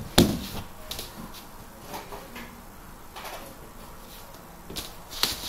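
A few knocks and bumps: a loud sharp knock right at the start, then scattered faint taps, with a couple of louder knocks near the end.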